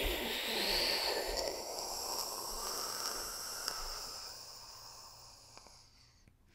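A long rushing whoosh like a rocket lift-off, with a faint rising tone near the start, fading away over about five seconds.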